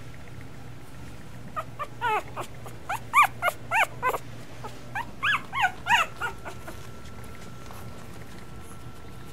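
A two-week-old Miniature Schnauzer puppy whimpering and squealing: a run of about a dozen short, high-pitched cries. Each cry rises and then falls in pitch. The cries start about a second and a half in and stop about two seconds before the end.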